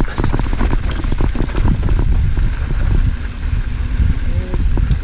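Wind buffeting the microphone of a camera on a mountain bike riding fast down a dirt singletrack. The low rush of wind is steady, mixed with frequent clattering knocks and rattles as the bike runs over rough ground.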